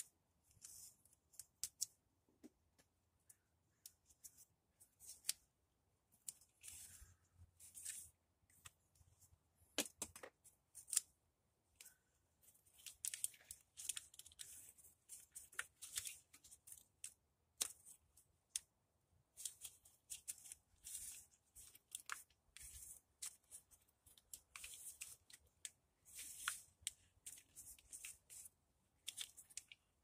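Faint, irregular clicks, ticks and short scraping rustles of hands working on plastic wiring connectors and parts, unplugging and pulling them free.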